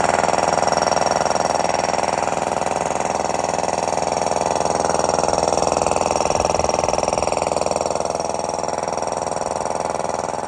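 Sanborn 1.6 hp electric air compressor running steadily at full speed while it pumps up the tank. The motor runs strongly without bogging down, now that it is wired correctly for 120 volts.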